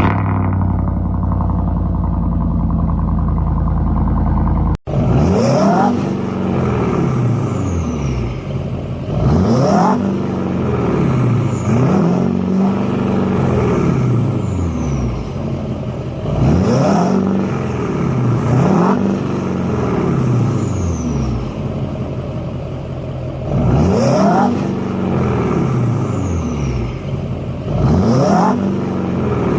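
Chevrolet Silverado pickup engine idling steadily, then, after a brief cut about five seconds in, revved over and over, its pitch climbing and falling back with each rev.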